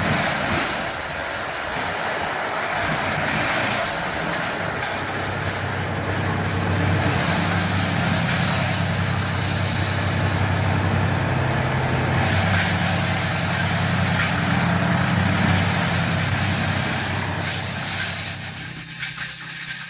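Tree shredder running under load, its engine drone steady beneath a dense noise of timber being fed in and shredded. The sound fades away near the end.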